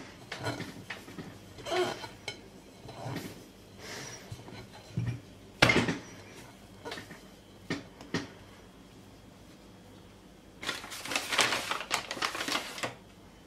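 Hand kneading soft, slightly sticky yeast dough in a glass bowl: irregular soft slaps and squelches of dough, with knocks against the glass. There is one sharp knock about halfway through and a longer, busier stretch of noise near the end.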